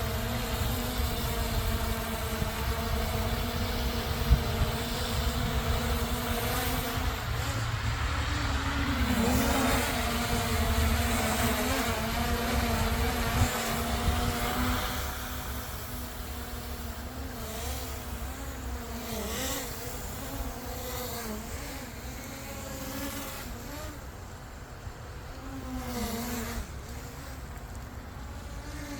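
Small DJI Mini Pro-series quadcopter drone buzzing in flight. Its motor pitch holds steady for about the first half, then wavers up and down and gets somewhat quieter as it manoeuvres. A low rumbling noise runs underneath.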